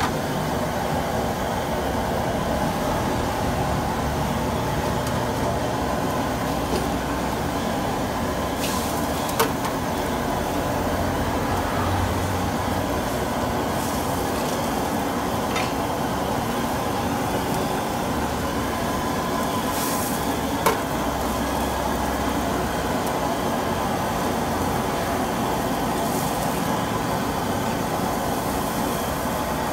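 Steady roar of a high-output gas wok burner with food sizzling and bubbling in the wok. Two sharp clicks cut through, about a third and two-thirds of the way in.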